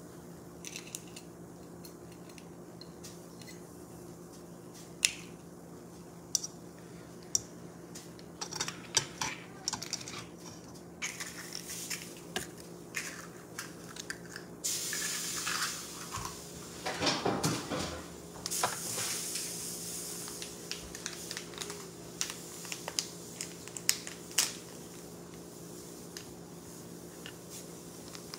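Kitchen food-preparation sounds: scattered clicks and clinks of a metal spoon, a ceramic bowl and other dishes, some sharper and louder than others, over a steady low hum. A little past halfway there are two short spells of hissing noise with more handling sounds between them.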